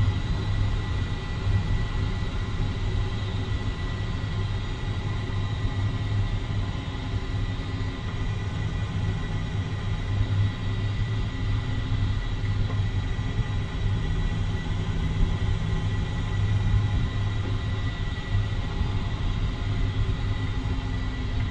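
Steady low rumble of a 2013 Jeep Wrangler Unlimited on the move, with a thin steady high whine over it.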